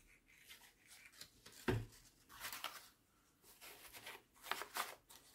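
Tissue and paper rustling and crinkling in short bursts as a tissue-wrapped magnet is rubbed around a rifle barrel's muzzle end to pick up steel filings, with a single knock a little under two seconds in.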